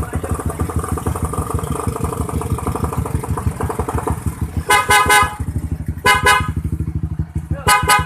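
Newly fitted Bosch Strider motorcycle horn sounded in three short blasts in the second half, the last one near the end, over the Honda CB150R's single-cylinder DOHC engine idling steadily.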